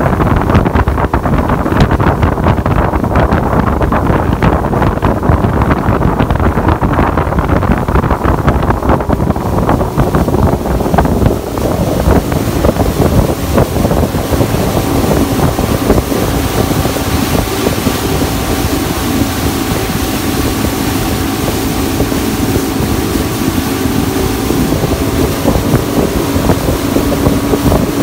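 Motorboat running at speed: wind buffeting the microphone and water rushing past the hull, with the engine's steady hum coming through more clearly in the second half.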